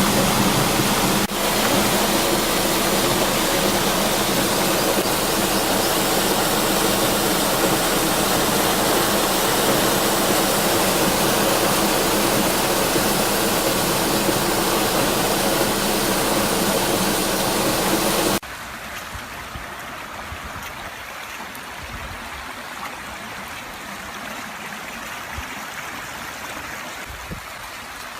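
Rushing floodwater of a river swollen by typhoon rain: a loud, steady rush that drops abruptly, about two-thirds of the way in, to a softer flow.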